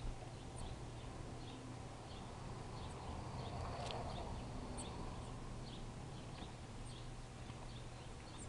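Small songbirds chirping, many short high calls close together, over a steady low hum.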